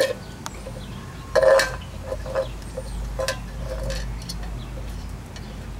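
Empty tin can clinking and clattering on concrete as a cockatoo tips it over and pushes it with its beak: a louder clatter about a second and a half in, then several lighter knocks and scrapes.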